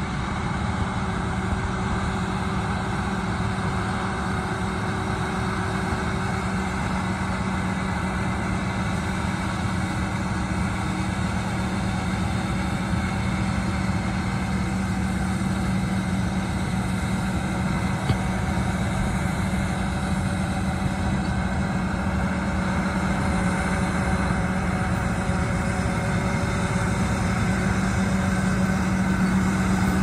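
John Deere 9770 combine and a John Deere tractor pulling a grain cart, their diesel engines running together in a steady drone with a strong low hum. It grows slightly louder toward the end as the machines draw closer.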